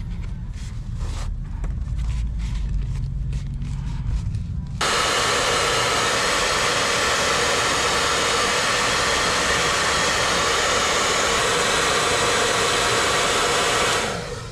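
A hot-air blower switches on about five seconds in and runs with a loud, steady rushing hiss for about nine seconds, then cuts off, heating the glue on the sole and upper to reactivate it. Before it starts there is only a low rumble.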